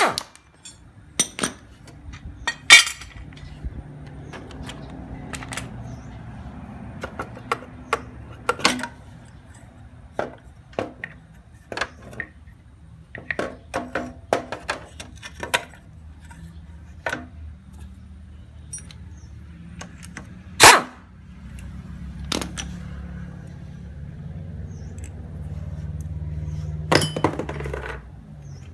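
Scattered metallic clinks and knocks of hand tools, bolts and the left engine cover as the cover comes off a Honda motorcycle engine and exposes the flywheel, over a low steady hum that grows louder near the end.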